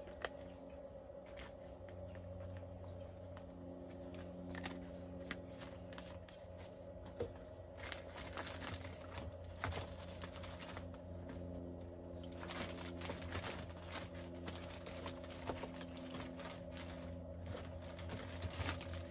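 Light, scattered clicks and rustling of spice shaker bottles and a plastic bag being handled while seasoning, over a steady low hum.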